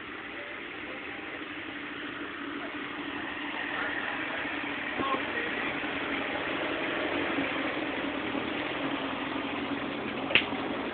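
Engine of a short-wheelbase off-road 4x4 running steadily while the vehicle sits stuck on a muddy slope, getting a little louder through the middle. A single sharp click near the end.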